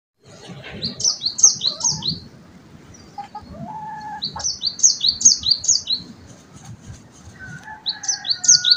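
A small songbird singing: three bursts of quick, high, down-slurred chirps in fast series, a couple of seconds apart, with a few softer, lower calls between them.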